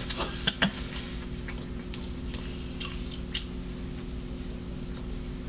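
Eating sounds from fried chicken: chewing, and the meat being pulled apart by hand. Short scattered clicks come mostly in the first second and again about three seconds in, over a steady low hum.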